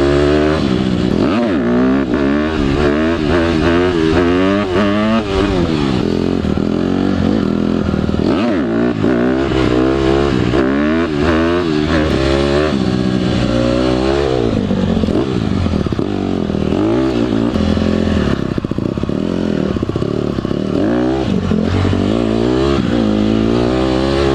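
Dirt bike engine being ridden, revving up and dropping back again and again as the rider works the throttle and shifts gears.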